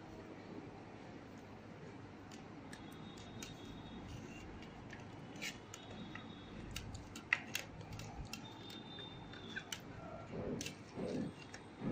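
Hands rubbing salt into a large whole raw fish on a steel plate: scattered small clicks and taps, with soft wet rubbing and scraping that grows a little near the end.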